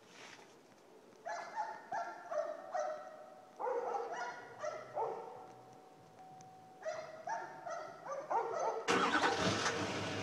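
Duramax diesel's variable-geometry turbo vane actuator whining in short repeated pitched bursts, in three groups, as it cycles the vanes. About nine seconds in, the engine starts abruptly and runs with a low rumble.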